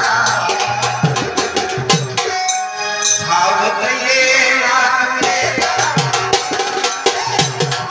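Live Marathi folk devotional song, a gan invoking Ganesh, with steady hand-drum strokes and jingling percussion. A note is held a little past two seconds in, then a voice sings over the beat.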